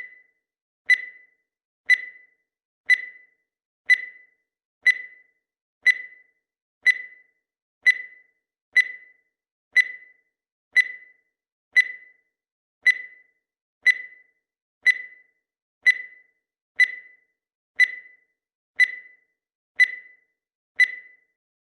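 A countdown timer's tick sound effect: a short, sharp, high-pitched tick once every second, evenly spaced, with silence between ticks.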